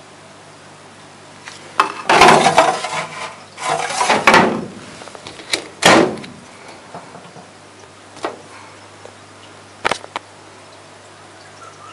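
A kitchen microwave stand's cabinet being opened and shut. There are two loud sliding scrapes about two and four seconds in, a knock near six seconds, and a few light clicks later, over a low steady hum.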